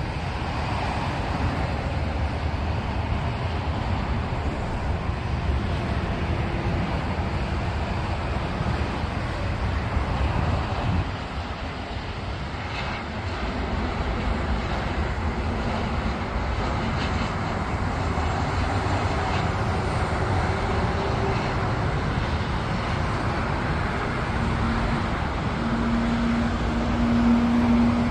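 Jet engine noise from a Korean Air Boeing 737-900ER coming in to land: a steady rushing sound, dipping briefly partway through, with a low drone coming in near the end.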